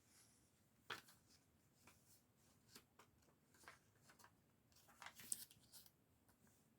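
Faint clicks and rustling of small plastic Lego pieces being handled and pressed together, with a short cluster of clicks about five seconds in.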